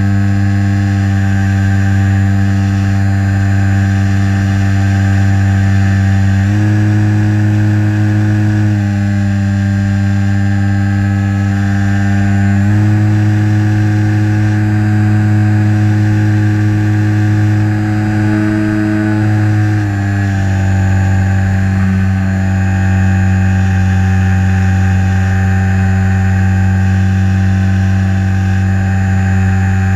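Electric motor and propeller of a HobbyZone Super Cub LP RC plane in flight, recorded on board: a loud, steady hum-like whine whose pitch steps a little up and down a few times as the throttle is changed.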